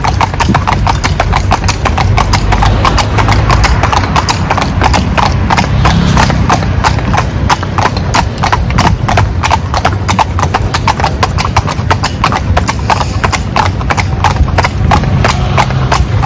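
Hooves of a pair of carriage horses clip-clopping on asphalt in a steady rhythm, about four to five hoofbeats a second, over a low steady rumble.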